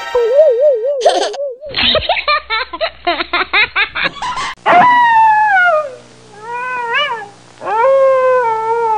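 Comic animal-voice sound effects edited together: a wobbling warble, a run of about a dozen quick laugh-like yelps, then three whiny cries that mostly fall in pitch.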